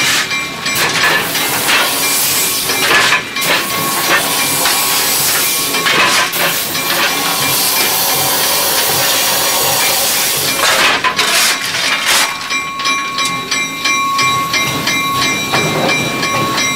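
Steam hissing loudly in the cab of the Handy Dandy No. 9 steam locomotive, broken by knocks and metal scrapes of a shovel at the open coal firebox. About twelve seconds in the hiss drops away, leaving a quieter running sound with thin steady tones and small clicks.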